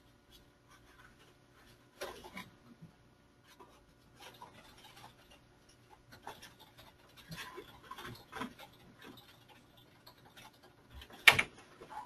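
Scattered faint clicks and rustling, with one sharp, much louder knock about eleven seconds in.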